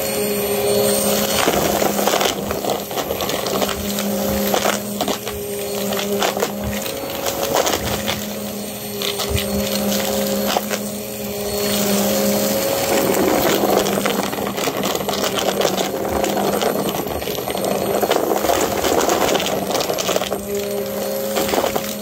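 Upright vacuum cleaner running on carpet and sucking up a pile of shredded paper, scraps and shavings. Its motor hums steadily under a dense clatter and crackle of debris rattling up through the machine.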